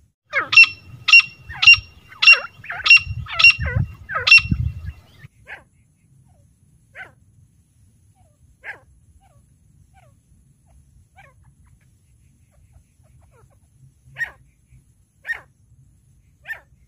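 Female grey francolin calling. It gives a quick series of about seven loud calls, nearly two a second, then a few faint scattered calls, and three more calls about a second apart near the end.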